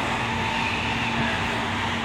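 Interior running noise of a Toyo Rapid Railway 2000 series electric train between stations: a steady rumble of wheels on rail with a faint steady hum.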